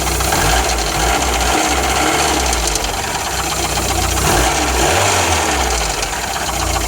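Engine of a VW Golf Mk1 idling with a fast, steady ticking from noisy hydraulic lifters, which the owner traces to the number 4 cylinder.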